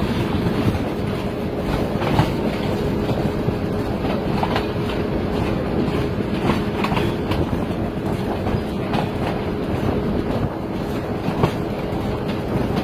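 A passenger train running on its rails: a steady rumble with a low hum, and the wheels clacking at irregular intervals over rail joints.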